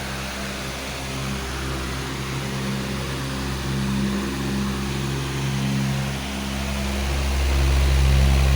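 Powerful electric fan running steadily: a low motor hum under a broad rush of air, swelling somewhat louder near the end.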